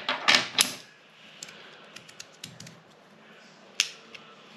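3D-printed magnetic fidget slider bar being worked by hand: two quick sliding clicks in the first second, then a few faint ticks and one sharper snap near the end.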